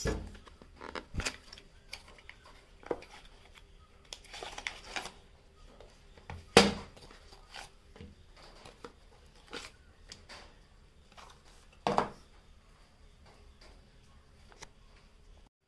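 A small cardboard charger box and its paper leaflets being handled and set down on a glass tabletop: scattered light taps, clicks and rustles. There is a sharper knock about six and a half seconds in, the loudest sound, and another about twelve seconds in.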